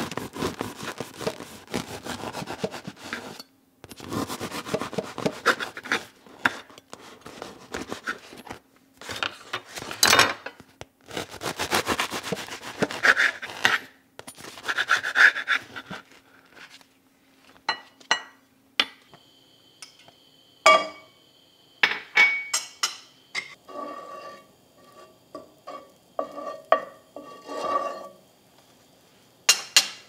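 A serrated bread knife saws through a crusty loaf on a wooden cutting board in long rasping strokes. It is followed by a run of sharp clicks and clinks from the knife and dishes being handled.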